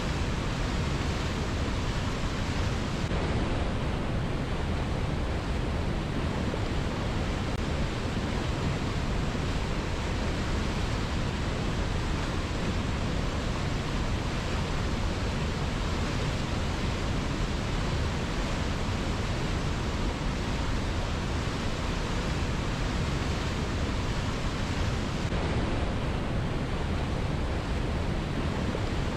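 River water flowing strongly: a steady, dense rush of water with no breaks.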